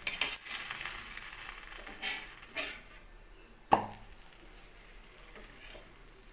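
Steel spatula scraping on a dosa griddle (tawa) as a rice flour roti is flipped, with a faint sizzle from the hot griddle. A couple of short scrapes about two seconds in, then one sharp metal clink of the spatula on the tawa just before four seconds.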